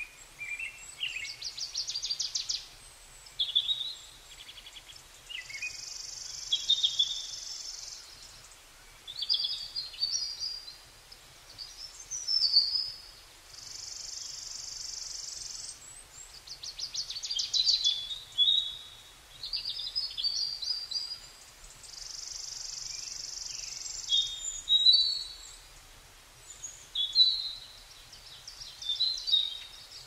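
Songbirds singing: a string of varied chirping phrases and fast trills, with a steady high buzz of about two to three seconds coming three times.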